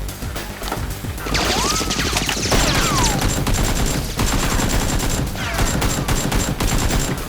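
Rapid gunfire in a staged blaster fight, many shots in quick succession, building up about a second in and heavier after about two and a half seconds, with several sliding whines that rise and fall.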